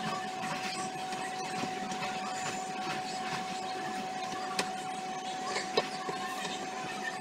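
Paper and tape rustling and scratching as hands pull decorative tape off a drawing on a clipboard, over a steady thin whine. Two sharp clicks come about four and a half and six seconds in.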